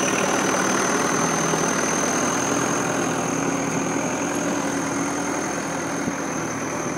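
Massey Ferguson 290 tractor's four-cylinder diesel engine running steadily at a low, even speed as it tows a cassava trailer slowly forward, getting slightly quieter over the few seconds.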